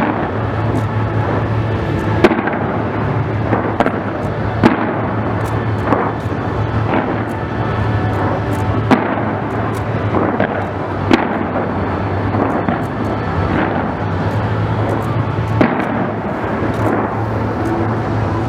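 Aerial fireworks display bursting in a dense run of bangs and crackles over a steady din, with the sharpest reports about two, five and eleven seconds in.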